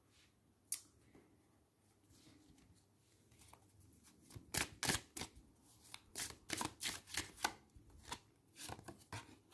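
Tarot cards being handled and shuffled: one light tap about a second in, then from about halfway a run of quick, irregular, crisp card strokes.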